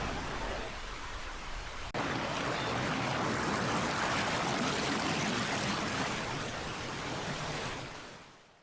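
Steady rushing of falling water. It changes abruptly about two seconds in to a slightly louder stretch, which fades out near the end.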